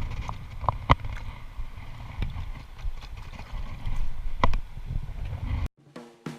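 Outdoor rumble of water and wind on an action camera's microphone, with a few sharp knocks of handling. Near the end it cuts off abruptly, and drum-kit music starts.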